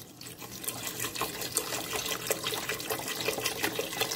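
Chicken broth pouring in a steady stream from a carton into a stainless steel stockpot onto softened vegetables, splashing as the liquid collects; it grows a little louder in the first second.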